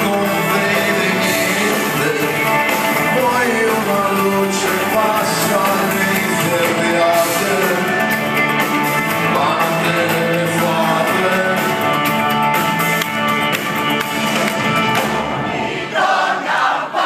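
Live rock band playing, with electric guitars, bass and drums under a male lead singer, heard from within the audience. About a second before the end the bass and drums drop out suddenly.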